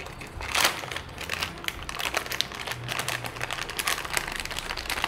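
Clear plastic packaging crinkling and crackling as it is handled and pulled open by hand, a run of irregular crackles with a louder one about half a second in.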